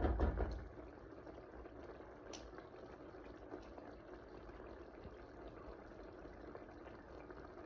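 Onion, tomato and garlic curry base simmering in the pan, bubbling steadily, after a single dull thump at the start.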